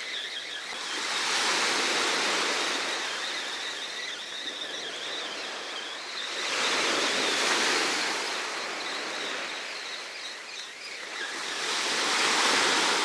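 Black Sea surf breaking on the beach: three waves swell up and wash back, about one every five to six seconds.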